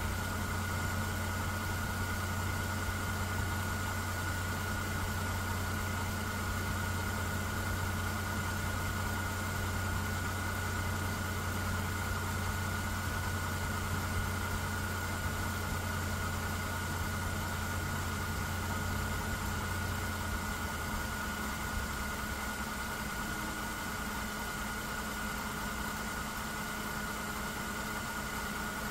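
Mercedes-Benz M272 V6 petrol engine idling steadily, heard from underneath the car by the accessory belt drive, with a thin steady whine over the engine note. The deep hum eases off about two-thirds of the way through.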